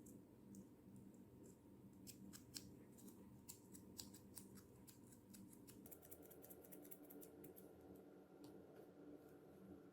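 Faint sharp clicks and snips, a quick irregular run of them in the first half, over a low steady hum.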